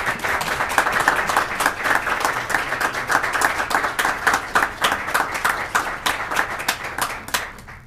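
A group of people applauding, many hands clapping quickly together; the applause stops suddenly near the end.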